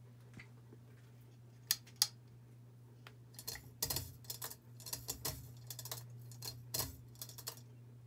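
Hunter Discovery ceiling fan running with a low steady hum. Over it comes a run of irregular light metallic clicks and rattles, starting with two sharp clicks about two seconds in.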